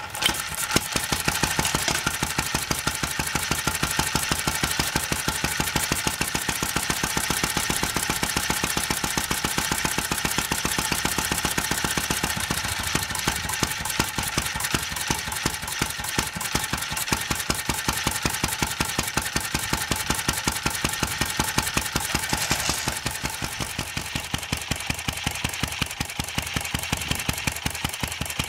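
Home-built flywheel engine catching as its flywheel is spun by hand, then running through its muffler with a rapid, even firing beat.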